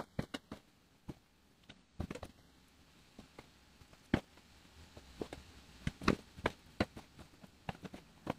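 Chef's knife cutting raw chicken breast into cubes on a plastic cutting board: irregular knocks as the blade meets the board, coming faster in the second half.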